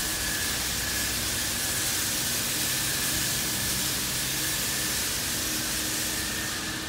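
Steady hiss of a Washworld Profile MAX in-bay automatic car wash spraying cleaning solution and water onto a car, with a steady high-pitched whine running under it.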